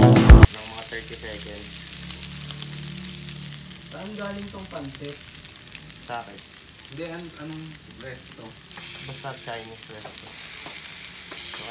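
A steak's fat cap sizzling as it is seared edge-down in hot fat in a grill pan, rendering and crisping the fat. The sizzle grows louder about nine seconds in.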